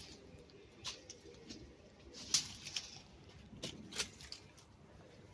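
Footsteps scuffing on a gritty floor: a handful of irregular sharp clicks and scrapes over a faint low rumble.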